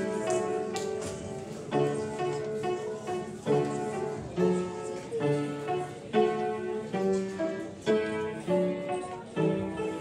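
Instrumental piano music: a melody over chords, each note struck sharply and then fading, at an even pace.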